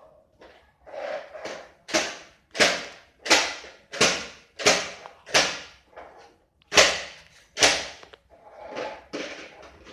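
A series of sharp strikes or slaps, about one every two-thirds of a second with a couple of short pauses, each dying away quickly.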